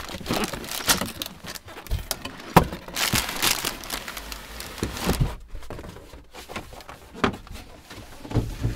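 Cardboard scraping, rustling and knocking as the large printed outer box of a LEGO set is slid off its white inner box and a loose cardboard panel is handled, with irregular knocks, the sharpest about two and a half seconds in.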